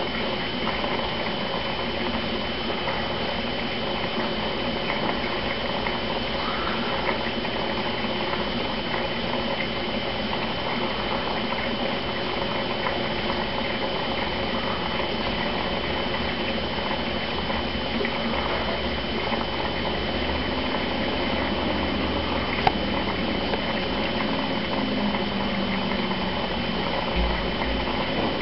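Aquarium's internal sponge filter running, its water steadily bubbling and trickling, with a thin high whine underneath. One short click sounds late on.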